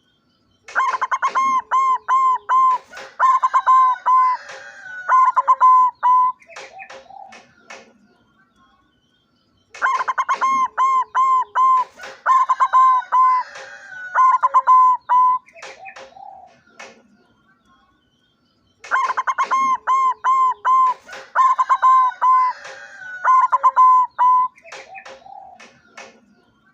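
A white barred zebra dove (perkutut putih lurik) singing: rapid ringing coos, given as the same phrase three times, about nine seconds apart.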